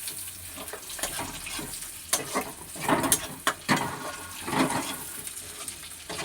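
Panch phoron and black cumin sizzling in hot fried-out fish oil as a tempering, with a spatula stirring and scraping the pan several times, mostly in the middle.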